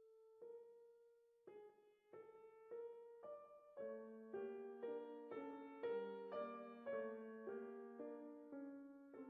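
Quiet background piano music: one held note, then notes struck about twice a second that build into fuller chords.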